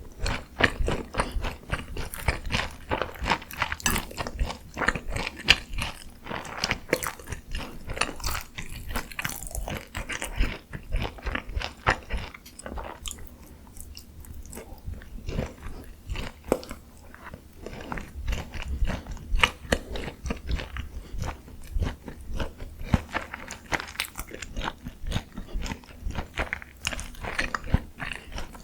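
Close-miked biting and chewing of crispy Korean fried chicken (dakgangjeong) coated in a honey mustard cream sauce: dense, irregular crunches that ease into quieter, softer chewing for a few seconds about halfway through, then pick up again.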